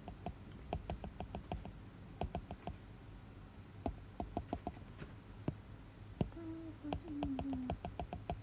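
Fingers tapping rapidly on an iPad touchscreen, short sharp clicks in quick runs of several at a time, pressed hard enough to be told not to press so hard.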